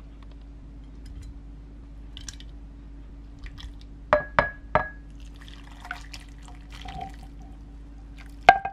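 Peeled quail eggs dropped by hand into a glass container, three sharp ringing clinks a little after four seconds in, followed by soft wet splashing as soy braising liquid and eggs are poured in from the pot, and one louder clink against the glass near the end.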